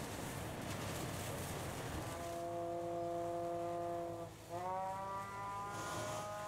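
Fire engine running with a low engine rumble. A stack of whining tones sets in after about two seconds, sags in pitch about two-thirds of the way through, then climbs back up and holds.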